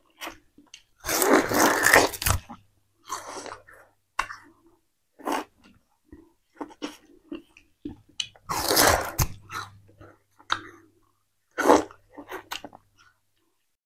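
Close-miked chewing of peeled sugarcane: wet crunching of the fibrous pulp in irregular bursts with short clicks, loudest twice, once just after a second in and again near nine seconds.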